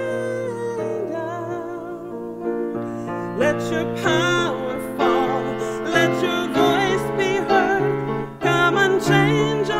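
A woman sings a solo worship song with vibrato, accompanied by piano.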